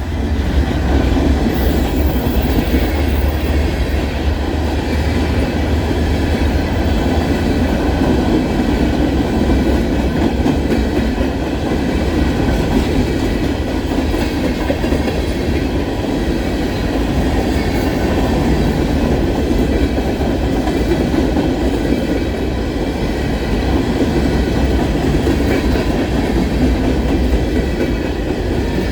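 Empty cars of a CSX freight rock train rolling past at close range: a steady, loud rumble of steel wheels on the rails.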